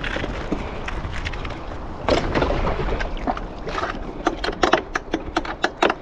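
Wind rumbling on the microphone, with a quick run of sharp clicks and knocks over the last two seconds as the rider climbs from the dock onto the jet ski, its engine not yet running.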